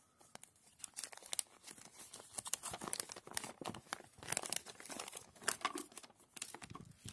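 Folded paper inserts, an instruction leaflet and a poster, being handled and unfolded: irregular paper crinkling and rustling that starts faintly and turns busy about a second in.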